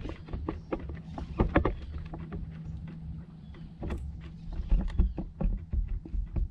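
Scattered knocks and clicks on a fishing kayak's hull, over the low, steady hum of an electric trolling motor that fades out about halfway through.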